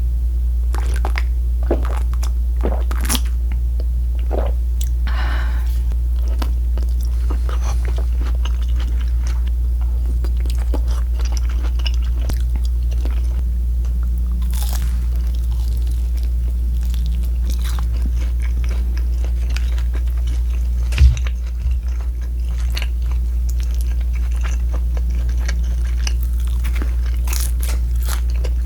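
Close-miked crunchy bites and chewing of battered, deep-fried pork, with many short crisp crunches throughout. A steady low hum runs underneath, and there is one sharp low thump about two-thirds of the way through.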